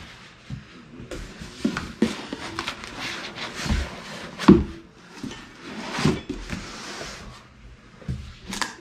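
3D printer parts being lifted out of foam packing and set down on a work surface: irregular knocks and thuds, the loudest about halfway through, with stretches of scraping and rustling in between.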